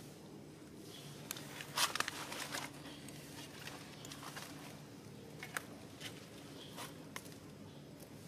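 Fern leaves rustling and crackling in short bursts as a baby macaque handles and drags a fern frond across concrete, loudest about two seconds in, with scattered small clicks and a steady low hum underneath.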